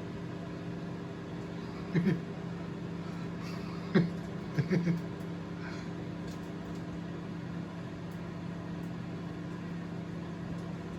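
Steady electrical hum of a running microwave oven, broken by a few brief short sounds about two, four and five seconds in.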